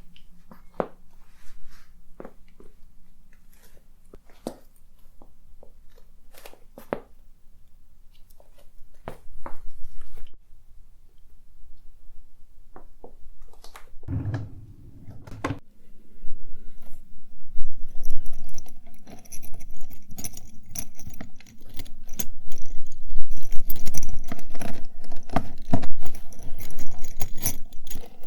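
Close-miked rummaging through small objects: scattered clicks and taps, a low thump about halfway through, then a dense run of clattering, rustling and crinkling in the second half.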